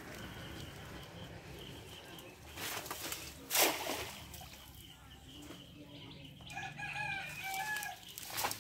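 A rooster crows once, a stepped call of about a second and a half near the end. A short loud noise comes about three and a half seconds in.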